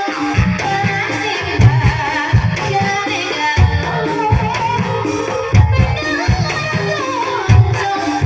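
Live Javanese gamelan music accompanying an ebeg horse dance: deep kendang drum strokes over held metallophone tones, with a singer's wavering voice above.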